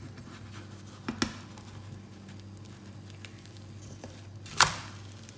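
Potato-and-egg omelette frying quietly in a nonstick pan with a faint crackling sizzle. A utensil knocks against the pan a little past a second in, and a louder clack comes near the end as the omelette is handled for flipping.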